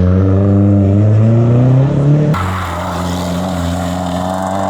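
Rally car engine accelerating hard, its pitch rising steadily for about two seconds, then an abrupt cut to another rally car's engine running at steady high revs.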